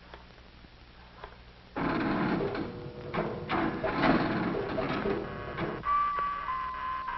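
A machine starts clattering rapidly and loudly about two seconds in and runs for about four seconds, then stops. Steady pitched music tones with one long held note take over near the end.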